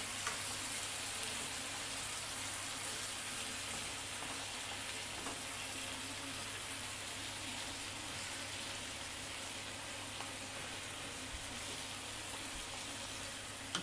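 Sliced pork and onions in ginger sauce sizzling steadily in a nonstick frying pan turned down to lower heat, the sizzle easing slightly over the seconds, with a steady low hum beneath.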